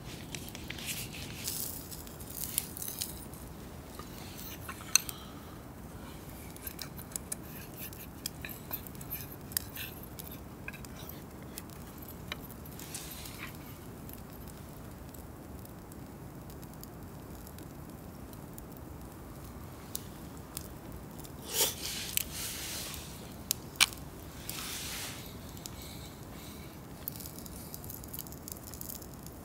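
Scattered light clicks and scrapes of small camp utensils and gear being handled, with two short rustles about three quarters of the way through, over a steady low background.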